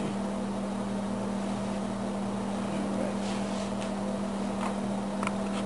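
Steady mechanical hum with one strong low tone, from a motor or electrical appliance in the room, with a few faint clicks.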